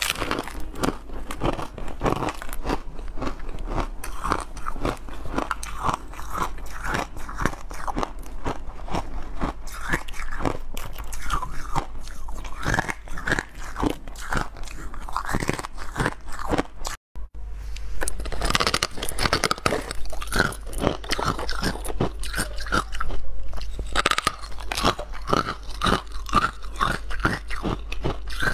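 Crunchy ice being bitten and chewed: a dense, continuous run of sharp crunches and cracks, broken by a brief silence about two-thirds of the way through.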